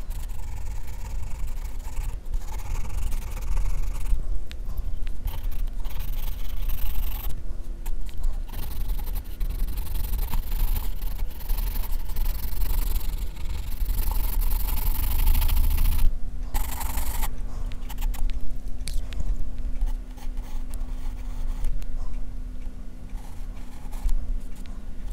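Graphite pencil scratching and shading on drawing paper in close strokes, over a low rumble, with brief pauses about a third and two thirds of the way through.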